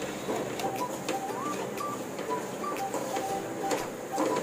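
Wooden spatula scraping and stirring granulated sugar into hot caramel in a nonstick pan, a quick run of scratchy clicks, under a light background tune of short plucked notes.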